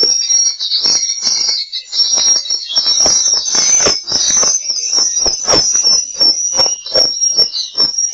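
Recorded swiftlet lure sound played back, of the kind used to draw swiftlets into a swiftlet house: dense, high twittering chirps run throughout, mixed with a quick, irregular series of short clicking pops.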